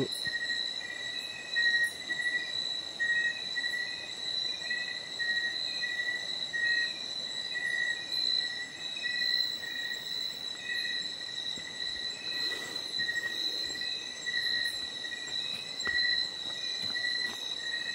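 Night insects chirping in chorus: a steady high trill with a lower chirp pulsing a couple of times a second beneath it.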